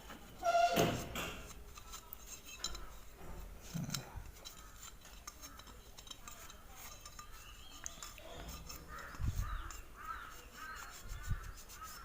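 A crow caws once, loudly, about half a second in; later, small birds chirp in a quick series, with faint clinks of metal parts in between.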